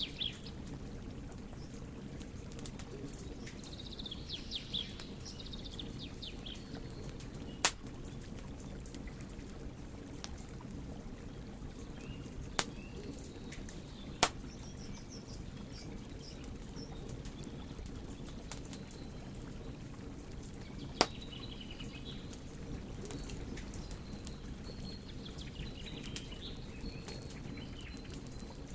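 Wood fire crackling, with many faint ticks and four loud sharp pops. Small birds chirp several times in the background.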